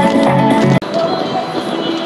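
Electronic dance music with a steady beat that cuts off abruptly less than a second in, giving way to quieter outdoor background sound.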